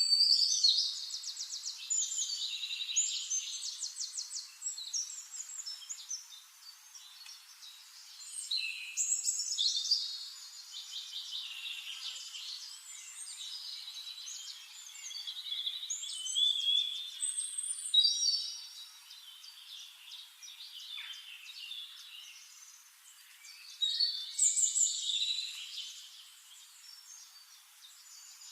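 A songbird singing in long, varied phrases full of rapid trills, in four or five bouts with quieter gaps between them.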